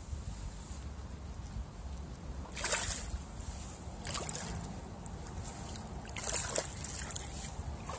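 A hooked bass thrashing and splashing at the water's surface close to the bank, three short splashes about two and a half seconds, four seconds and six seconds in, over a steady low rumble.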